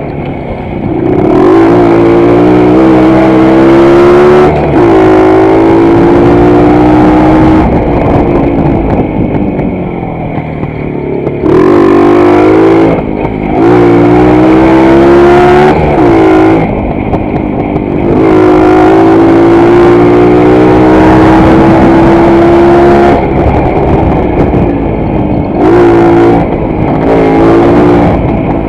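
WSK 125 motorcycle's single-cylinder two-stroke engine accelerating under load through the gears: its pitch climbs several times and drops back at each gear change. Near the end the throttle is opened and closed in short bursts.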